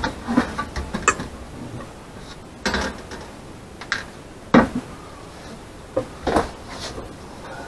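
Several separate knocks and clatters of a freshly cut wooden board and hand tools being handled and set down, the sharpest a little past halfway.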